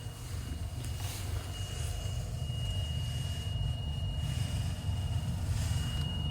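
Mazda CX-5 air conditioning running inside the cabin: a steady low rumble with a thin, steady high-pitched whine through it, briefly dropping out near the end. This is the abnormal air-conditioner noise the owner set out to cure by replacing a part.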